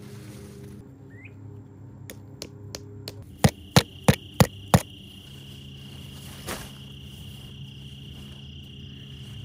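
A tent stake hammered into the ground: a few light taps, then five sharp strikes at about three a second. As the strikes begin, an insect starts a steady high-pitched buzz over a low hum.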